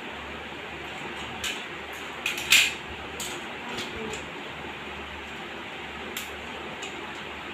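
Plastic toy train engine and wagons clicking and clattering as they are handled and coupled together: a few light knocks in the first four seconds, the loudest about two and a half seconds in, and one more near the end, over a steady background hiss.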